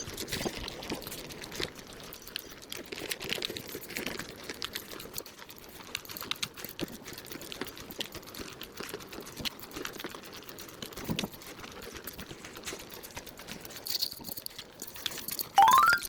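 Fast-forwarded walking: footsteps sped up into a dense, irregular patter of taps over outdoor background. Near the end, a short loud rising glide cuts in just before it stops.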